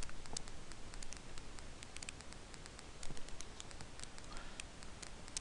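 Scattered, irregular clicks from a computer mouse and keyboard, over faint steady hiss.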